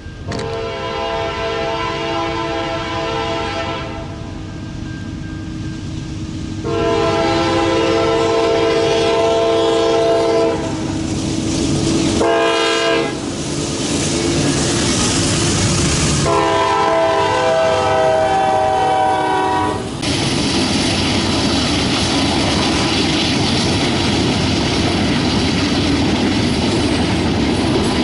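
A diesel freight locomotive's multi-chime air horn sounds two long blasts, a short one and a final long blast, the standard grade-crossing signal. From about two-thirds of the way in, the locomotives and cars pass close by with a loud, steady rumble of engines and wheels on the rails.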